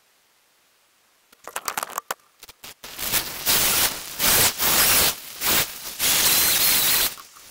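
Stihl chainsaw running in bursts of full throttle, each about a second long with short drops between, so loud and close that it comes through as a harsh hiss. It comes in suddenly after near silence, with a few short spurts first, about a second and a half in.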